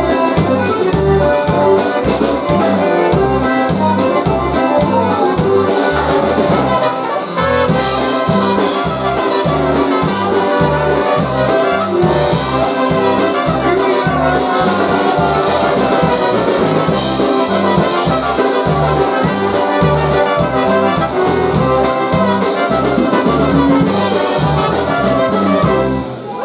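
Live polka band music, with brass carrying the melody over a steady, bouncing bass beat.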